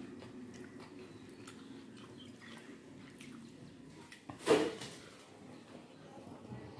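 Fingers squishing and kneading rice with curry on a plate, with chewing sounds. About two-thirds of the way in comes one brief, loud mouth sound as a handful of rice goes into the mouth.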